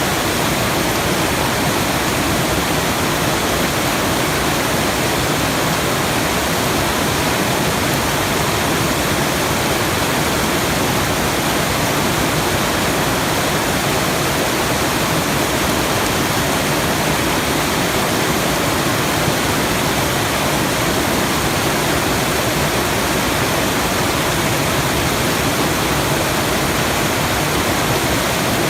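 Steady, even rushing noise of the waterfall kind, a sleep-sound track with no breaks, events or changes in level.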